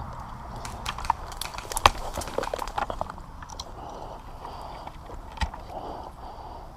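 Footsteps of a player moving on foot: a quick run of irregular sharp clicks and cracks in the first three seconds, the loudest near the middle of that run, then a single sharp snap a little past five seconds.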